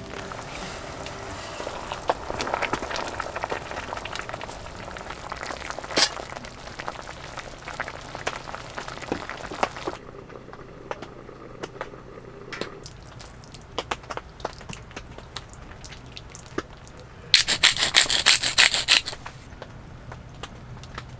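Rain dripping, scattered drops tapping irregularly over a light hiss that drops away about halfway through. Near the end comes a loud burst of noise lasting about two seconds.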